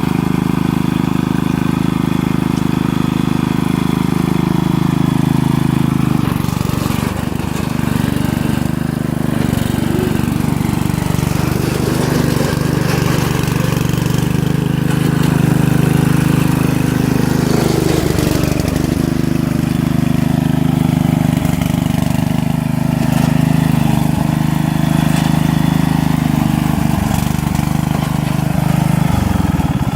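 Lawn mower engine running hard and steady, its pitch dipping and recovering several times as it labours under load, and dropping suddenly near the end.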